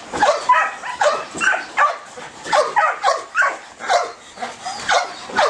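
Belgian Malinois giving a rapid string of short, high-pitched yelping barks, two or three a second, frantic with excitement for the ball held just out of reach.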